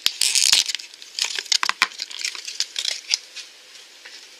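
Crinkling and crackling of packaging as a small plastic bathtub-shaped blind-pack container is opened by hand, with sharp clicks of the plastic. It is loudest in the first second, keeps crackling to about three seconds in, then quietens.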